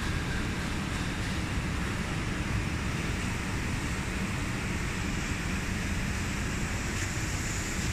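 Steady rain falling on wet pavement and puddles, an even hiss with no letup.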